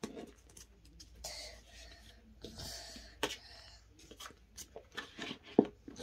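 Hands handling a small plastic toy egg and its packaging: scattered clicks and taps with a few bursts of rustling, and one sharper knock near the end.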